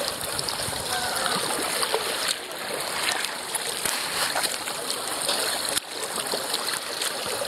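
Water splashing and washing along the bow of a kayak as it is paddled, a steady wash of water noise.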